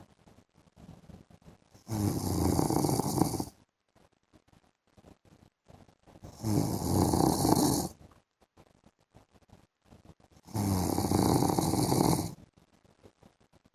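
A man snoring in his sleep: three loud snores about four seconds apart, each lasting under two seconds, with quiet breathing between them.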